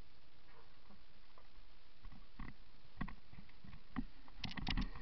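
Mountain bike rattling and clattering over roots and rocks on a rough downhill trail: a steady hiss at first, then sharp knocks from about two seconds in that come thicker and louder near the end.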